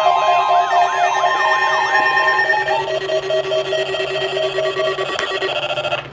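Weather alert radios sounding the warning alarm for the required weekly test: a steady high tone, with a fast wailing siren and pulsing beeps layered over it. The wail stops about two seconds in and the steady tone soon after; the beeps run on until near the end, when the alarms cut off.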